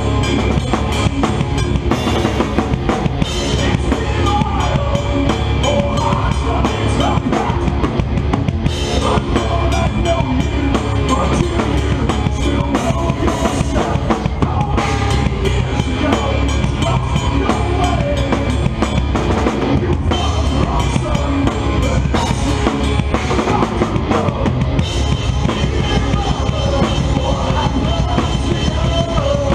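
Rock drum kit played hard in a live band, heard close up from the drummer's position: bass drum and cymbal crashes stand out over loud electric guitar, with no break.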